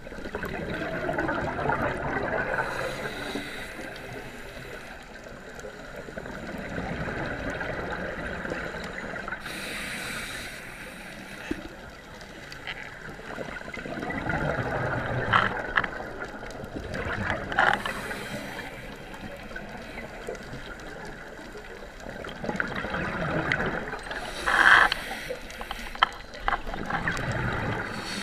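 Scuba diver breathing through a regulator underwater: gurgling exhaled bubbles and a hissing breath in a slow cycle, repeating about every seven to eight seconds.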